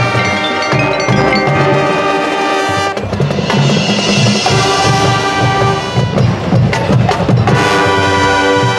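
High school marching band playing its field show: wind and brass hold chords, then drums and cymbals take over about three seconds in, and the held chords return near the end.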